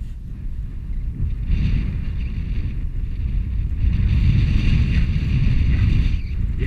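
Wind buffeting the microphone of a moving wearable camera: a loud, uneven low rumble with a hiss above it that grows stronger from about a second and a half in.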